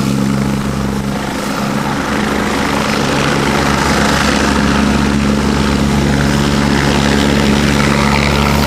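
Agusta A109 twin-turbine helicopter hovering low, then tilting nose-down and moving off just above the ground; its rotor and engines run steadily, with the sound growing somewhat louder toward the end.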